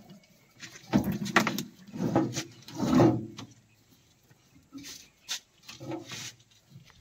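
A thick coiled rope being dragged off a tractor's footplate, with irregular rustling and knocks as it scrapes and bumps against the metal. The three loudest knocks come about a second apart early on, followed by quieter scattered clicks.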